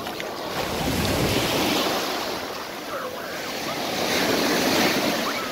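Surf washing onto a sandy beach, the noise of the waves swelling twice, about two seconds in and again near the end.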